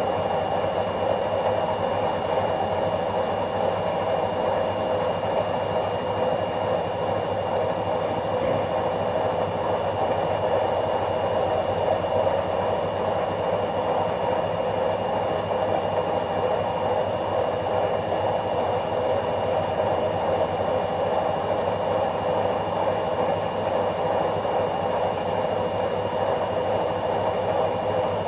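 Washing machine running steadily: an even rushing hum with a faint constant high whine over it.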